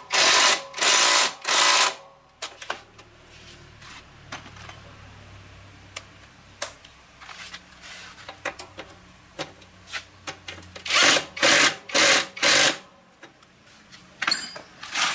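A power tool run in short bursts of about half a second to a second: three near the start and four more about two-thirds through. Between the bursts there are faint clicks and a low hum.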